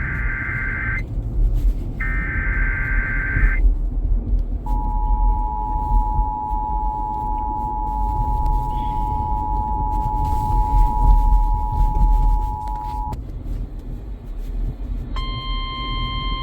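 Emergency Alert System broadcast: the last two warbling data bursts of the digital SAME header, then the two-tone attention signal, a steady dual tone held for about eight seconds that cuts off abruptly. It is announcing a severe thunderstorm warning. About a second and a half later, a single steady alert tone starts near the end.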